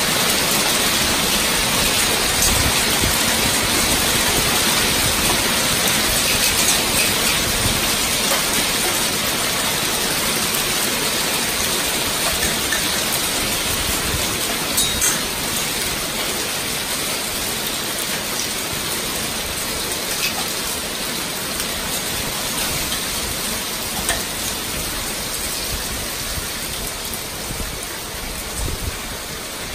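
Hailstorm: hailstones and rain falling hard, a dense steady hiss with scattered sharper ticks of stones striking, slowly easing off.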